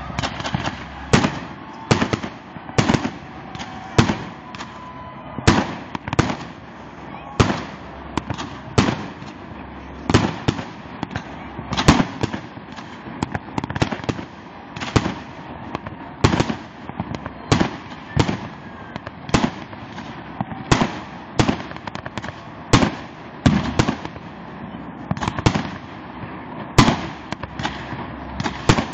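Fireworks bursting: an irregular string of sharp bangs, about one to two a second, over a constant noisy background.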